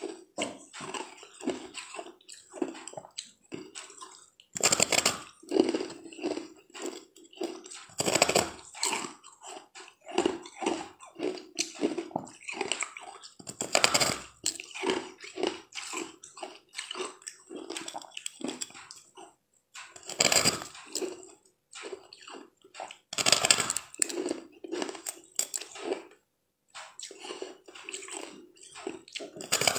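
Bites into a disc of frozen sweet ice, each one a loud crunch, about five of them a few seconds apart, with smaller crunching and chewing sounds of the ice between them.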